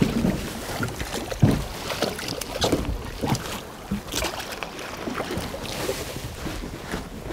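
A hooked Atlantic chub mackerel splashing at the surface beside an inflatable boat, then being swung up out of the water. Irregular splashes, slaps and knocks against the boat's tube run over the noise of the sea.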